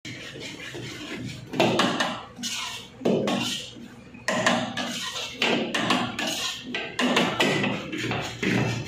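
Metal ladle scraping and knocking in a wok as rice noodles are stir-fried and tossed over high heat. It comes as a run of sudden scraping, sizzling bursts, roughly one a second, each fading before the next.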